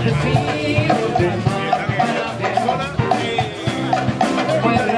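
Live band with a brass section playing upbeat, Latin-tinged dance music with a steady rhythmic beat, voices over it.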